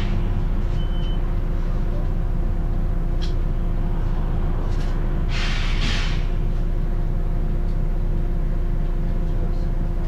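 Volvo B9TL double-decker bus heard from inside the saloon: its straight-six diesel engine running with a steady low rumble. A loud hiss of compressed air comes a little over five seconds in and lasts about a second.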